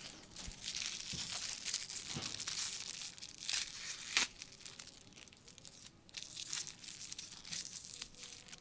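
Aluminium foil crinkling and tearing as a small foil-wrapped packet is unwrapped by hand, with a few sharper snaps. The crackling comes in two spells with a short pause about six seconds in.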